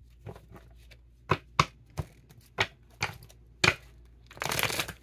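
Tarot cards being handled: a string of sharp snaps and taps, the loudest two close together about a second and a half in, then a brief rustling shuffle near the end.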